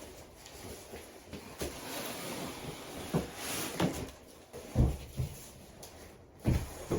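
A few scattered soft thuds and knocks, about four of them, spaced unevenly over quiet room tone.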